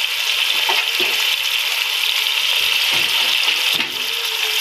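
Sliced onions, tomatoes and green chillies frying in ghee in a pan, sizzling steadily.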